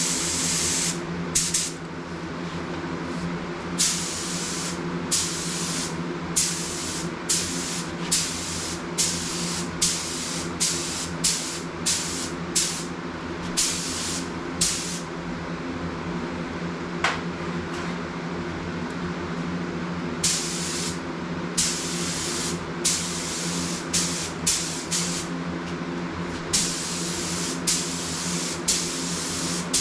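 Paint spray gun spraying a car door in short passes: a burst of hiss about every second, some twenty in all, over a steady low hum.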